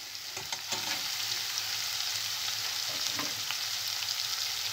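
Onions, spices and tomato-pepper paste sizzling steadily in oil in a stainless steel pot as the paste is fried. A few light taps of a metal spoon near the start, and the sizzle grows a little louder about a second in.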